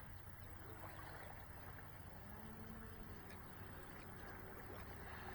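Pro Boat Recoil 2 RC speedboat running out on the water, heard faintly from a distance over a steady background hiss.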